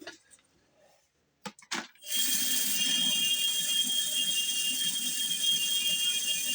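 A few clicks, then a homemade half-inch belt sander's 997 brushed DC motor starts about two seconds in and runs the belt steadily with a high-pitched whine.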